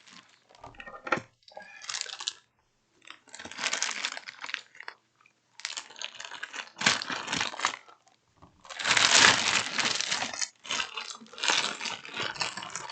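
Packaging crinkling and tearing as the helmet is unwrapped, in about five bursts with short pauses between them.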